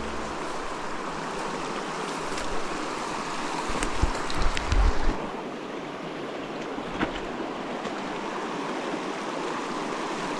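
Pecos River mountain stream rushing over rocks, a steady wash of moving water. A few low thumps sound near the middle.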